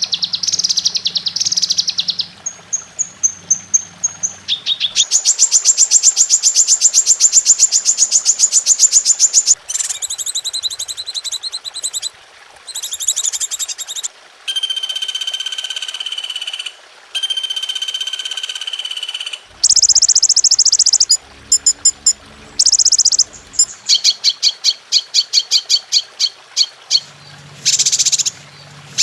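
Masteran recording for tutoring songbirds: a run of different bird songs and calls one after another, with fast repeated chips and trills, two long held whistled notes in the middle, and rapid chattering. A low buzzing sound lies underneath at the start and again near the end.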